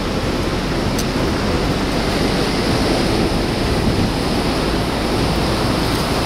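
A steady, even rushing noise with no rhythm or pitch.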